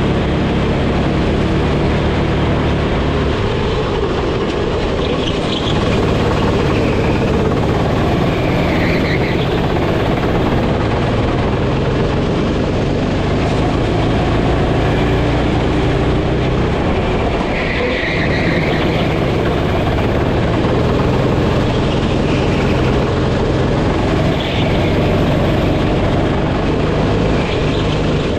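Go-kart engine running hard on track, heard from the kart itself, its pitch changing repeatedly as the throttle is opened and lifted through the corners, with wind rushing over the microphone.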